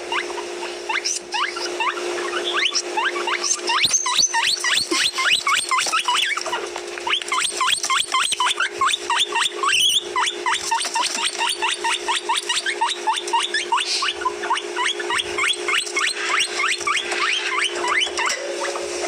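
Guinea pigs wheeking: short, high, rising squeals repeated several times a second and overlapping. This is the call used to get a guinea pig's attention. A steady low hum runs underneath.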